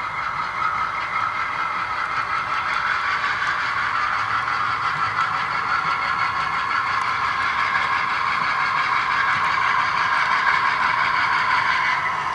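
HO scale GE B36-7 model locomotive's sound decoder playing diesel engine running sound through its small speaker, steady and growing a little louder as the train moves.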